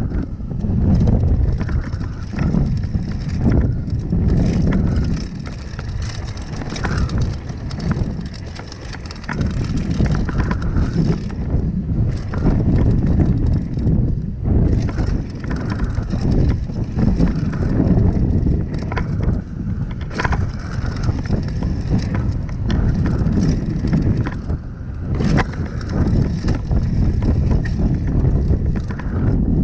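Mountain bike riding downhill on a dry dirt singletrack: tyres rumbling over the dirt and the bike rattling, with frequent sharp knocks over bumps, and wind buffeting the microphone.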